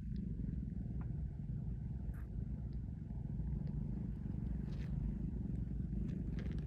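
Ragdoll kitten purring, a low steady rumble, with a few faint ticks over it.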